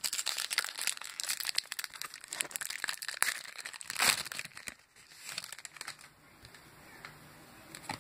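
Foil wrapper of a Topps Chrome trading card pack crinkling and tearing as it is ripped open by hand. The crackling is dense for about four seconds, peaks just after four seconds, then thins out and dies down.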